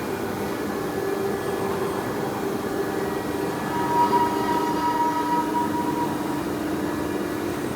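CNC router running, its spindle giving a steady whine with a higher tone about halfway through that fades a couple of seconds later.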